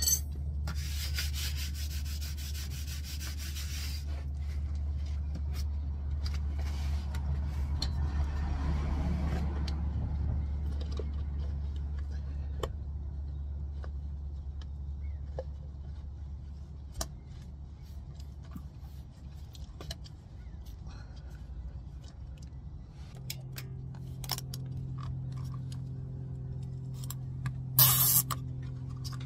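Hands rubbing and scraping a rubber rack-and-pinion bellows boot as it is worked onto the steering rack, with scattered small clicks and a brief loud scrape near the end as a wire is drawn around the boot. A steady low hum runs underneath and changes to a steadier pitched hum about two-thirds of the way through.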